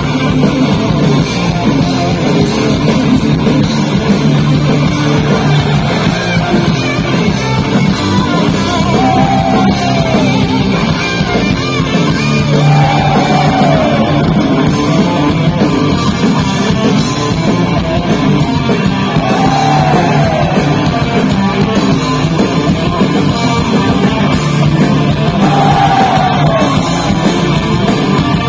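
Live heavy metal band playing loud and steady through a festival PA, recorded from within the crowd: distorted electric guitars, drums and a singer. A rising-and-falling melodic line recurs four times.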